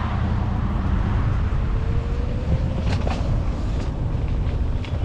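Bike riding over a rough, rooted dirt trail: a steady low rumble of wind and ride noise on the microphone, with a few sharp clicks and knocks from the bike about three seconds in.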